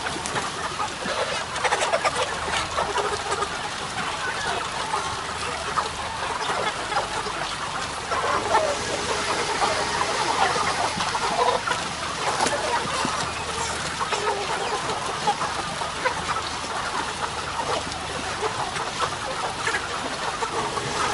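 A flock of broiler chickens clucking continuously, many calls overlapping into a dense chatter.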